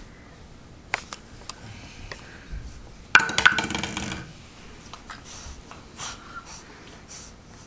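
An empty plastic soda bottle knocking and crackling against a hardwood floor for about a second, about three seconds in, with a few light clicks before it.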